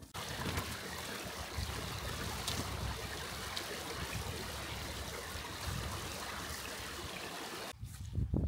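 Small rocky mountain stream running over stones, a steady rush of water that cuts off sharply near the end, giving way to a few footsteps on grass.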